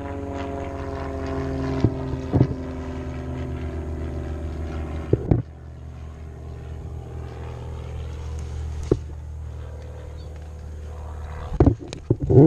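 A steady low mechanical hum, like a motor running, with a few sharp clicks scattered through it and a cluster of them near the end.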